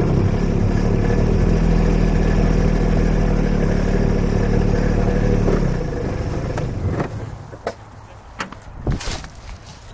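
Small utility vehicle's engine running steadily, heard from the driver's seat. It cuts out about six seconds in, followed by a few sharp knocks and clatter.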